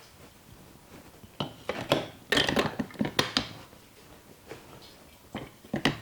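Hands working a head during an Indian head massage: quick runs of sharp slaps, taps and cracks, one burst about a second and a half in and another near the end.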